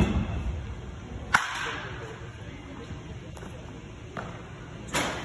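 Batting-cage sounds: one sharp crack of a baseball impact about a second in, a few faint knocks, and a short rushing burst near the end, over a steady hum from a large indoor space.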